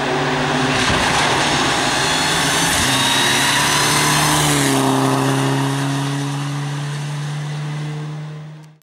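Mitsubishi Lancer Evo IX rally car's turbocharged four-cylinder engine running at steady revs with heavy road and tyre noise. The engine note drops to a slightly lower steady pitch about halfway through, and the sound fades out near the end.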